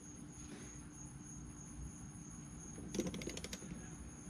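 A quick run of about ten ratchet clicks from a socket wrench about three seconds in, over a faint steady hum.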